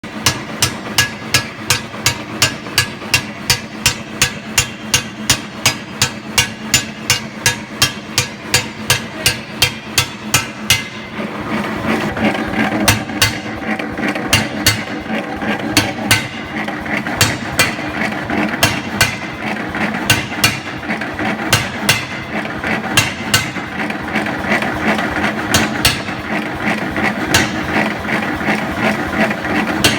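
Forging hammer blows on metal in a steady rhythm of about three strikes a second; about eleven seconds in, the strikes turn irregular over a denser, louder workshop clatter.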